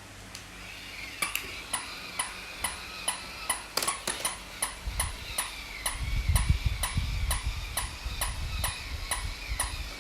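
Steady, even clicking, about two clicks a second, over a faint high ringing tone. A low rumble comes in about halfway through.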